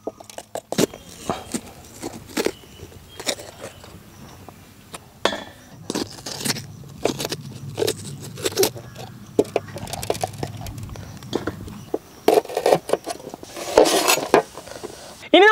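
Bell peppers being cored and cut on a large steel platter: irregular taps and clinks of peppers and a knife against the metal plate, with a quicker run of knife chops near the end.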